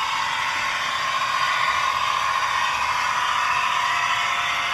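Roco model of the Ontario Northland Northlander trainset running, its DCC sound decoder playing a steady diesel engine sound through the model's small speaker. The sound sits mostly in the middle and upper range, with little bass.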